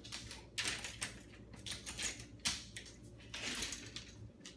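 A dog scrabbling at and rattling a wooden lattice pet gate: irregular scrapes and clattering clicks, the longest near the end.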